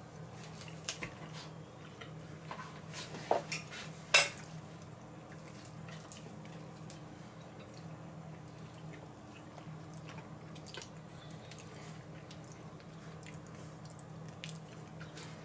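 A few light clicks of a metal fork against a plate, the sharpest a little after four seconds in, over a faint steady low hum.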